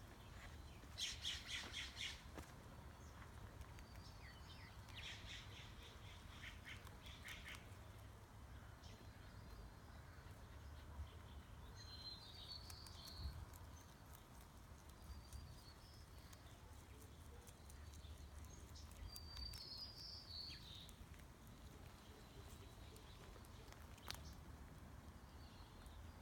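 Rabbits crunching vegetables: two short runs of quick, crisp crunching chews near the start, then quieter nibbling. A few faint bird chirps come in around the middle and again later, over a low steady hum.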